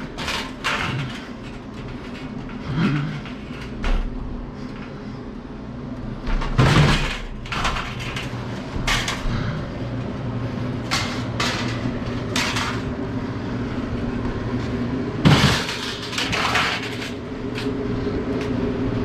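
A sheet-metal air handler unit knocking and clunking as it is carried down a staircase, with a string of irregular bumps and rattles, the loudest about a third of the way in and again near three-quarters. A steady low hum runs underneath and grows stronger in the second half.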